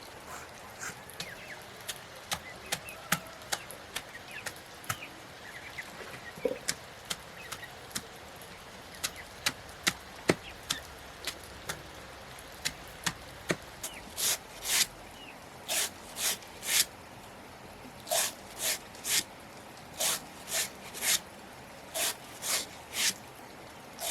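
Manual chopping with a blade: scattered sharp chops and knocks, then from about halfway steady hissing strokes coming in twos and threes.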